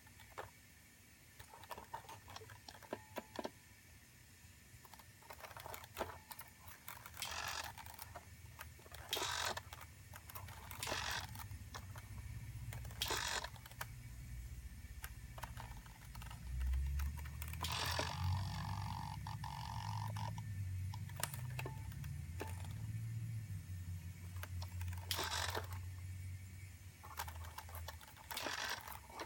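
Hobby servo on a model railway turnout whirring briefly, about seven times, as it throws the switch points back and forth, with small relay clicks; a low hum underneath from about twelve seconds in.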